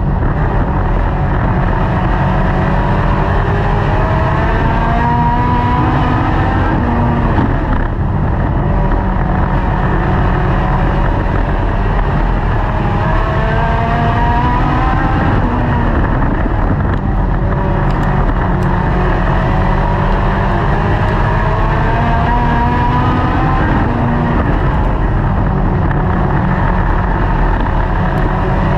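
Dirt-track race car's engine heard from inside the car while racing hard. The pitch climbs along each straightaway and drops back for the turns, repeating every seven to eight seconds.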